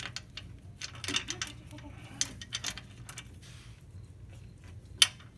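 Metal tools and hardware clinking and clicking against each other during a sway bar install, a run of small clinks with one sharp click near the end.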